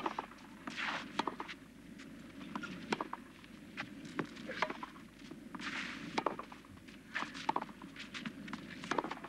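Tennis ball struck back and forth by racket strings in a rally on a clay court: sharp pops about every one to one and a half seconds, with shoes scuffing and sliding on the clay between shots.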